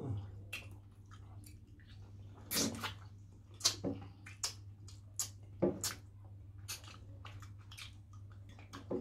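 Close-up wet eating sounds: irregular lip smacks, sucking and chewing as people eat fish in pepper soup with their fingers. A steady low hum runs underneath.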